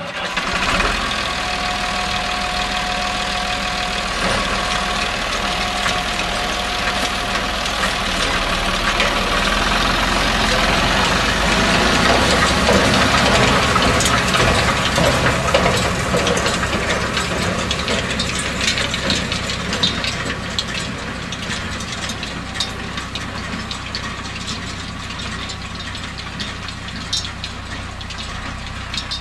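Steyr 975 tractor's diesel engine running as it pulls a loader wagon whose pickup gathers hay from a windrow, with scattered clicks and rattles from the machinery. It grows louder around the middle and fades toward the end.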